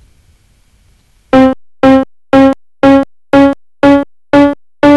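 Synthesized keyboard tones: after a near-silent first second, about nine short notes sound at roughly two a second, each a tiny step higher than the last. This is an eighth-tone scale, with the semitone divided into eighths of a tone.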